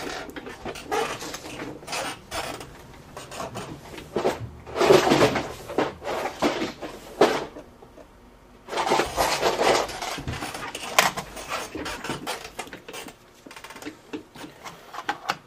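Rummaging for a small screwdriver: hard objects clattering and scraping, as in a drawer being searched, in irregular bursts with pauses. The biggest bursts come about four to six seconds in and again about nine seconds in.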